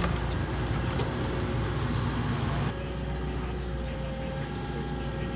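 Tracked excavator's diesel engine running steadily under load, with a thin hydraulic whine over the hum and a few knocks from the bucket working in mud in the first couple of seconds.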